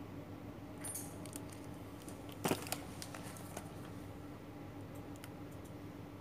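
Parcels wrapped in paper and plastic tape being handled on a tiled floor: light clicks and rustles about a second in, then one sharp knock about two and a half seconds in and a few small ticks after it. A steady low hum runs underneath.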